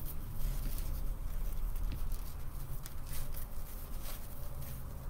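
Deco mesh rustling as hands fold and pinch a petal, with scattered small crackles.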